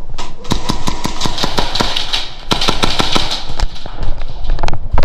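Airsoft gunfire: a fast run of sharp shots, several a second, for about three and a half seconds, with a few louder cracks near the end.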